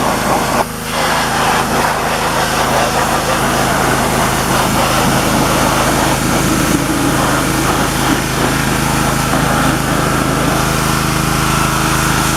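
Pressure washer running steadily, its motor droning under the hiss of the water jet spraying onto a riding lawn mower.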